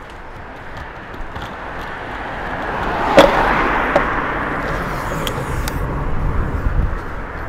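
Longboard wheels rolling on asphalt, the rumble growing as the board picks up speed, with a sharp clack about three seconds in and a smaller one about a second later.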